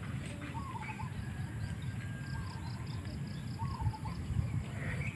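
Open-field ambience: a bird gives short chirping calls several times over an insect chirping in a fast even pulse, about four to five a second, with a low steady rumble underneath.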